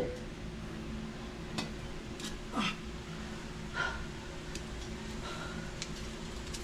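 Glass liquor bottles being handled and set on a shelf: a few light knocks and faint short clinks, over a low steady hum.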